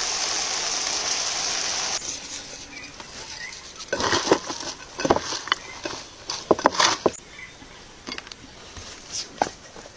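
Vegetables sizzling on a grill over hot charcoal for about two seconds. Then hands toss a shredded cabbage and tomato salad in a bowl, with sharp, crisp crunching and rustling strokes that are densest in the middle.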